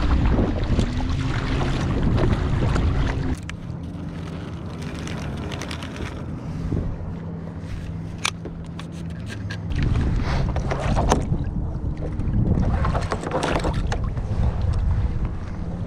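Wind buffeting the microphone over water lapping against a kayak hull. Between about three and ten seconds in it drops to a calmer stretch with a steady low motorboat engine hum and a few sharp clicks as the anchor line and reel are handled.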